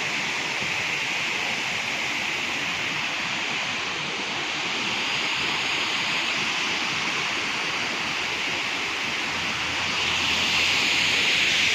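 Waterfall rushing: a steady wash of falling water that grows a little louder near the end.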